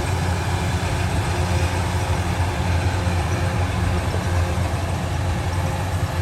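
A heavy engine running steadily at an even speed, with a strong low hum and no change in pitch.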